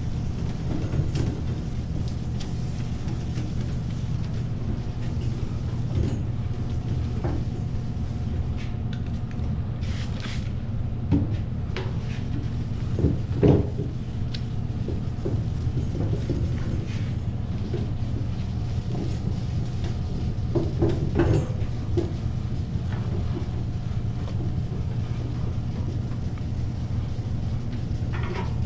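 Steady low mechanical hum, with scattered short knocks and scrapes.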